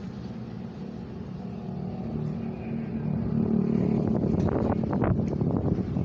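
A motor engine running nearby, its steady hum growing louder partway through, with crackling noise on the microphone over the second half.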